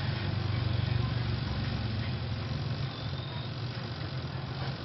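A steady low machine hum runs evenly under a faint background haze, with no strokes or changes.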